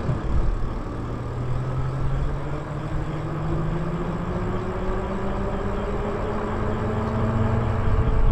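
Lyric Graffiti e-bike's electric motor whining under way, its pitch rising slowly as the bike gathers speed, over steady road and wind noise.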